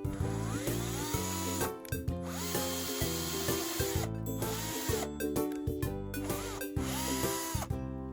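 Electric power drill run in about five short bursts, each spinning up, holding and winding down, over background music.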